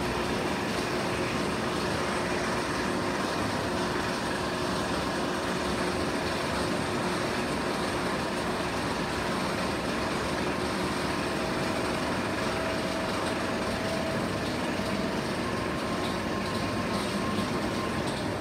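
Bolliger & Mabilard floorless roller coaster's chain lift running as a train climbs the lift hill: a steady mechanical rattling hum with a faint whine.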